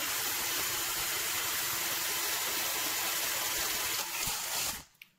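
A Black+Decker cordless drill runs steadily, its bit drilling into the thin stainless steel base of a colander. It dips briefly about four seconds in, then cuts off just before the end.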